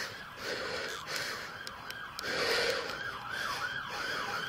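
Emergency vehicle siren in its rapid yelp mode, its pitch rising and falling about three times a second, growing plainer about halfway through, with patches of noise close to the microphone.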